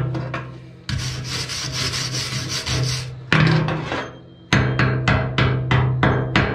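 Steel wire brush scrubbing hard across a fresh weld bead on a steel loader bucket, then a chipping hammer striking the weld about four times a second, each blow ringing in the bucket's steel. Slag is being cleaned off the bead before the next weld pass.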